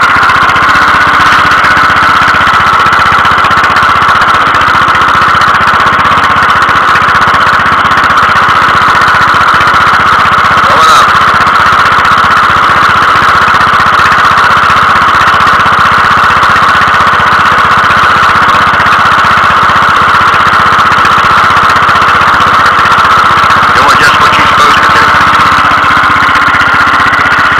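Bolens lawn tractor engine running steadily, with a constant high hum over it.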